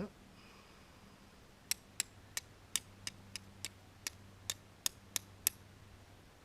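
Flint and steel being struck about a dozen times in a row, sharp metallic clicks roughly three a second, with a short thump at the very start. The char cloth is slow to take a spark.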